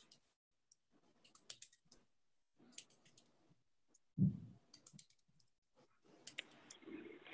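Scattered faint clicks and small handling noises picked up over video-call microphones, with one louder dull thump about four seconds in. A faint steady hiss comes in near the end.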